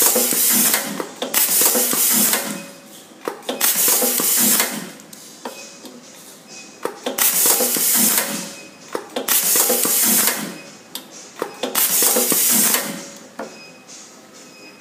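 SWIFT SWT25100M automatic cable tie machine running through its tying cycles: repeated bursts of air hiss with sharp mechanical clicks, about six in all and roughly every two seconds, as each zip tie is fed to the tip, pulled tight and cut.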